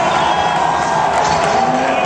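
Basketball arena crowd noise: a large crowd cheering and shouting.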